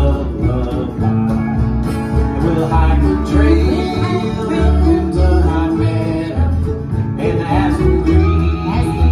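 Acoustic bluegrass-style string band playing live: mandolin and acoustic guitars picking over a steady walking line of upright bass notes, with no lyric sung.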